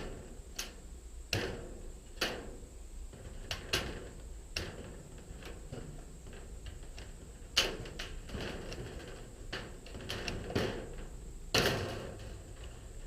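Sheet-metal fascia trim being cut and handled by hand: irregular sharp clicks and metallic snaps, with a couple of louder ones about two-thirds of the way through and near the end.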